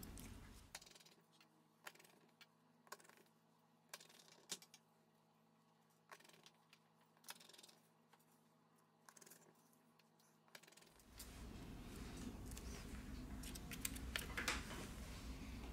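Light, sparse clicks and taps of small phone parts being handled on a workbench: cables and plastic on a Xiaomi Redmi Note 7 midframe. About eleven seconds in, a steady low rumble and hiss come up under them, and a few louder clicks follow near the end.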